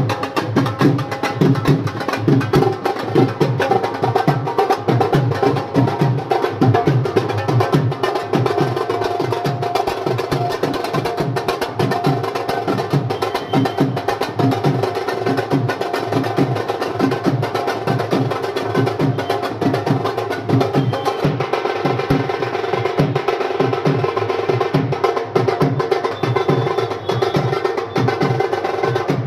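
Music with a fast, steady drum beat under sustained melodic tones.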